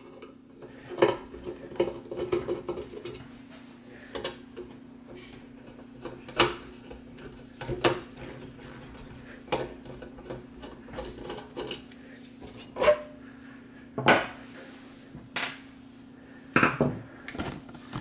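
Irregular metallic clicks and clinks, every second or two, as screws are undone and the sheet-steel case of an electric metal-melting furnace is handled and opened. A steady low hum runs underneath.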